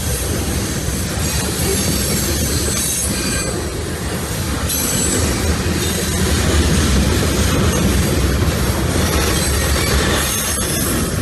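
Freight cars of a CSX manifest train rolling past, a steady heavy rumble with steel wheels squealing shrilly on and off.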